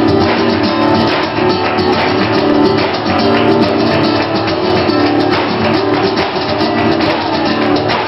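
Live flamenco: acoustic guitar playing with cajón and palmas hand-clapping, dense sharp percussive strikes over the guitar.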